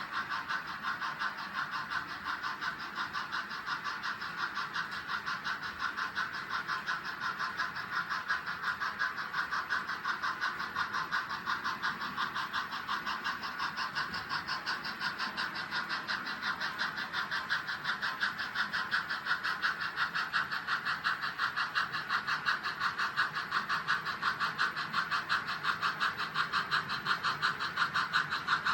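Model trains running on track: a quick, even clicking of wheels over rail joints with the whir of the locomotives, slowly growing louder as a train draws nearer.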